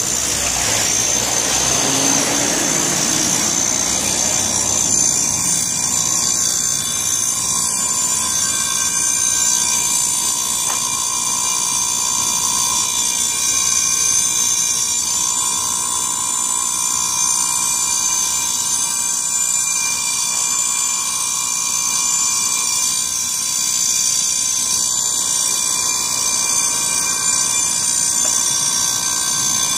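Fire station's alert alarm sounding continuously: a steady electronic tone with a shrill, high ringing above it, signalling a call for the truck to turn out.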